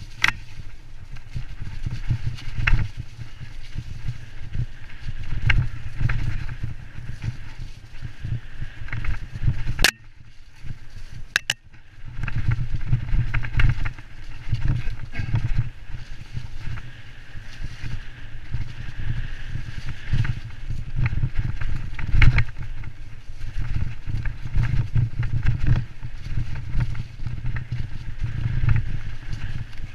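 Wind buffeting a helmet camera's microphone during a fast ride down a bumpy dirt trail, with knocks and rattles from the bumps. The wind noise drops briefly about ten seconds in, then picks up again.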